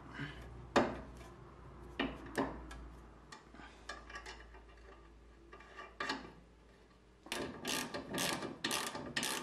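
A few metal clinks and knocks as the tie rod end is fitted to the steering arm, then, about seven seconds in, a socket ratchet clicking in a quick run of about three clicks a second, tightening the tie rod end nut.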